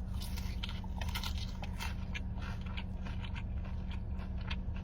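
Close-miked biting and chewing of crunchy food: many quick, irregular crunches over a steady low hum.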